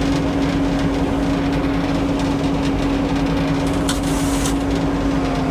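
Sawmill engine running steadily with an even hum, not under cutting load, and a brief hiss about four seconds in.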